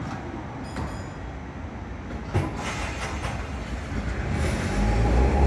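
Toyohashi Railway 3500-series tram pulling away from the stop, its motor and wheel noise growing louder towards the end. There is one sharp knock a little over two seconds in.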